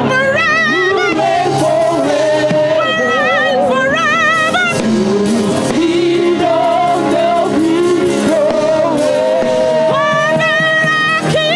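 Live gospel worship music: a singer holds long notes with a wide, wavering vibrato over a sustained instrumental accompaniment.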